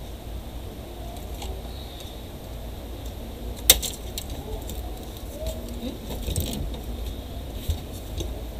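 Plastic and metal parts of a bent laptop's casing clicking and rattling as it is prised apart by hand, with one sharp snap about a third of the way in.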